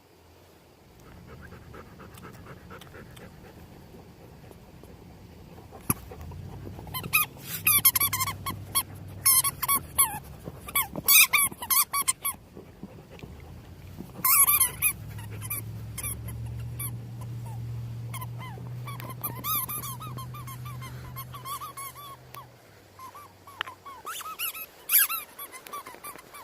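Rubber squeaky ball squeaking in quick runs as a dog chews and squeezes it, over a low steady rumble. The squeaks come thickest a few seconds in, thin out, then one more sharp run near the end.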